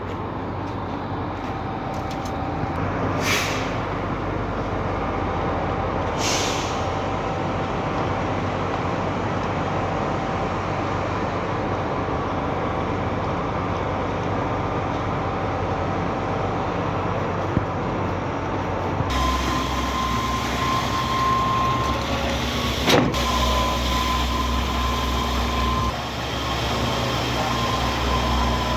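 Heavy diesel truck engines running steadily at a concrete pour, with two short air hisses a few seconds apart. About two-thirds of the way through, the sound switches abruptly to a deeper, louder run with a steady whine, and a single sharp click follows.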